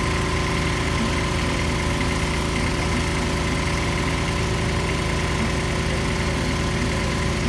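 Engine of a small trailer-mounted borehole drilling rig running steadily at a constant pitch.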